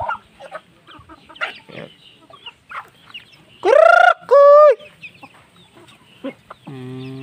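Chickens clucking as they feed, with one loud two-part chicken call about halfway through, the first part rising in pitch and the second held level.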